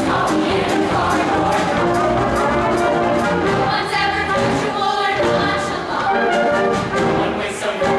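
Mixed-voice show choir singing an upbeat number over instrumental accompaniment with a steady beat.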